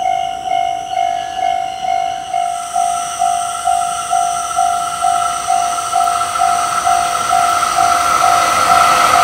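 Japanese level-crossing warning bell ringing at about two strikes a second, with red signal lights flashing. From about two and a half seconds in, the rushing noise of an approaching freight train rises beneath the bell and grows louder toward the end.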